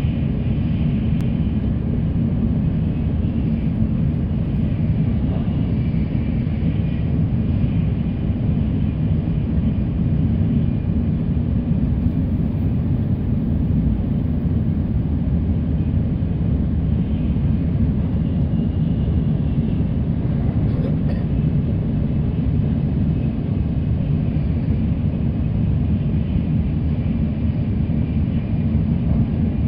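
Steady low rumble of a Tokaido Shinkansen bullet train running at speed, heard inside the passenger car.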